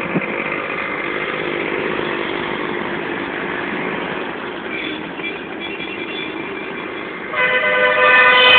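Road traffic with motorcycle and vehicle engines running, a vehicle horn sounding faintly about five seconds in, then a loud horn blast held for over a second near the end.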